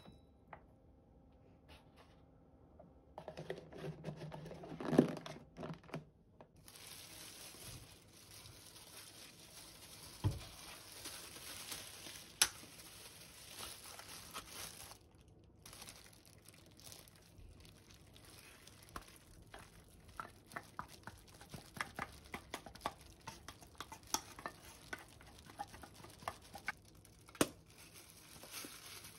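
Faint kitchen food-prep handling: canned tuna tipped into a glass bowl of rice and a wooden spoon stirring and scraping it, with plastic disposable gloves crinkling. Scattered small clicks and knocks, a few sharper ones, over a steady faint hiss.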